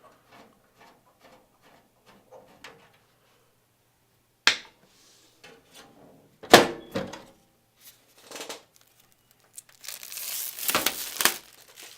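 A PC case's side panel being unscrewed and taken off: faint small ticks, a sharp click about four and a half seconds in, a louder knock about two seconds later, and a rustling scrape near the end.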